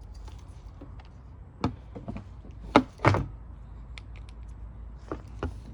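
A few sharp knocks and clicks from tools and recoil starter parts being handled, the loudest pair about three seconds in, over a faint steady hum.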